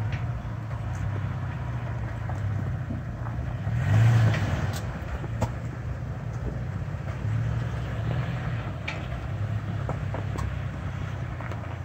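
Toyota Tacoma pickup's engine running at low revs as it crawls over rocks, swelling briefly with added throttle about four seconds in. Scattered light clicks and knocks sound over it.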